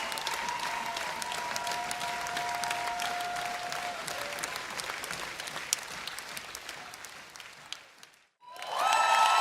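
A large audience applauding, with long sustained whistles over the clapping. The applause fades out near the end, and after a brief silence a louder burst of applause and whistling starts.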